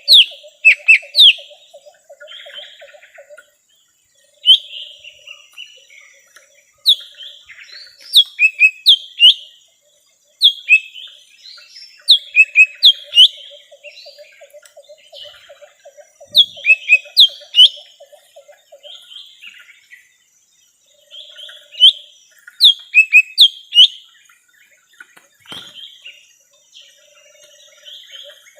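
Lesser green leafbird (cucak ijo mini) song, as played for a trapping lure call: loud, sharp sweeping whistles in quick clusters of two to five notes with short pauses between. A low, rapid trill runs underneath at times.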